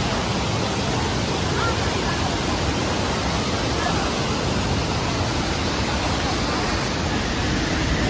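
Waterfall: white water pouring over a low masonry weir into a rocky pool, a steady, even rush.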